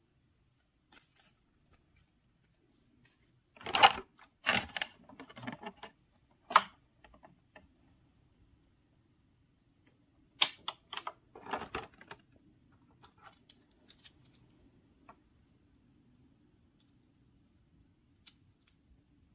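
Toy packaging being handled: paper sheets and a thin plastic tray rustling and clicking. The sound comes in a few short bursts, the loudest about four seconds in and again around eleven seconds, with faint scattered clicks after.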